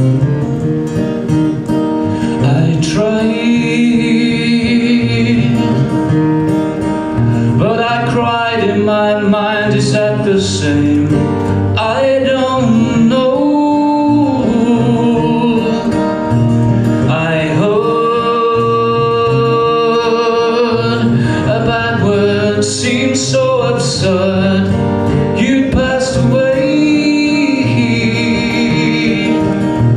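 Acoustic guitar playing alone, joined about three seconds in by a man's solo singing voice, which carries on over the guitar accompaniment.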